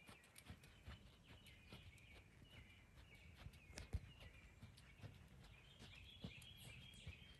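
Faint outdoor ambience: birds chirping steadily, with the soft, irregular hoof falls of a horse jogging on arena sand and one sharper click about four seconds in.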